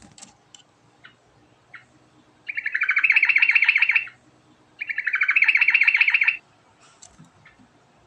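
Sooty-headed bulbul (trucuk) singing: two loud, rapid trills, each about a second and a half long with a short pause between them, with a few short chirps before and after.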